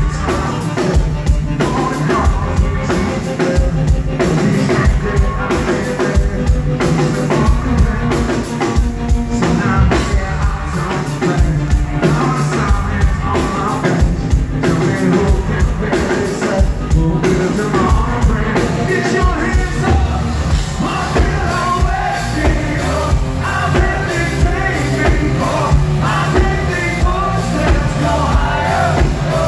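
A live hard rock band playing loud, with a male lead singer over a steady pounding drum beat.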